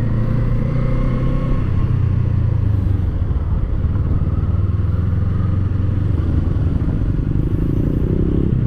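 Kawasaki Eliminator SE's 451 cc parallel-twin engine running steadily at low speed in traffic, with a rising engine note near the end.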